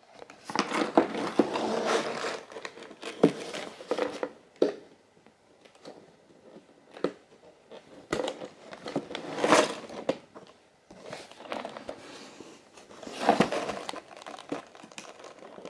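Cardboard Lego box being handled and tilted on a wooden floor, with crinkling, scraping and light knocks as fingers pick at its sealed flap trying to get it open.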